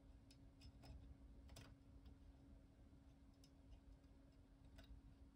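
A few faint, irregularly spaced clicks from a disc detainer pick working the discs inside a Solex R40 disc detainer lock, over near silence with a faint steady hum.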